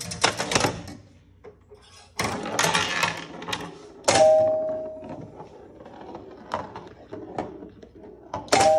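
1976 Chicago Coin Sound Stage pinball machine in play: bursts of mechanical clicking and clattering, with a two-note chime ringing out about four seconds in and again near the end.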